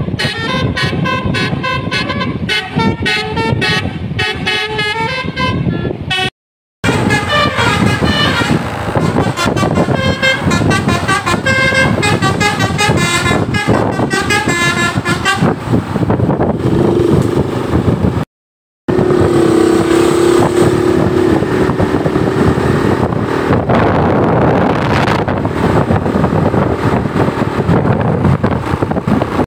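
A bus's 'telolet Basuri' musical multi-tone horn plays quick runs of notes as a melody over engine and road noise. The sound cuts out briefly twice. In the last third the melody gives way to mostly road and engine noise, with one steady horn tone held for about two seconds.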